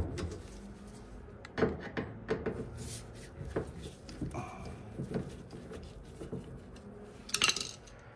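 Scattered clicks, knocks and rubbing of tools and the dryer's panels being handled while screws are taken out, with a louder scrape near the end.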